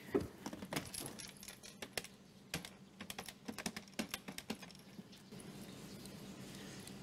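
Plastic clicks of a white corded push-button landline telephone: a louder click as the handset is taken up, then a quick, uneven run of small clicks as the number keys are pressed, ending about five seconds in.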